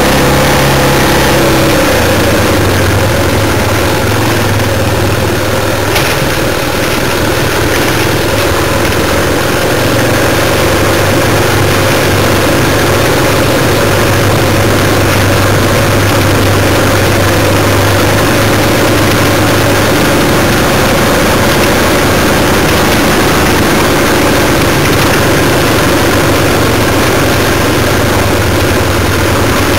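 Trail motorcycle engine running at low, steady speed as it picks its way along a rough lane, its note shifting slightly about a second and a half in and again about twenty seconds in. Heard close up from a camera on the bike.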